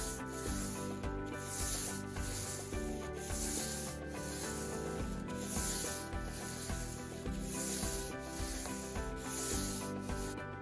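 Paintbrush strokes brushing paint onto a wooden window sill trim, a soft repeated swish about once a second.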